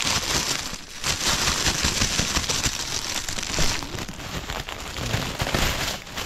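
Loud, dense crackling rustle, with a short drop about a second in.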